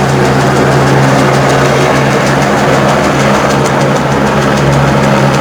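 Police helicopter flying low and close, its rotor and turbine making a loud, steady noise with an even, repeating beat.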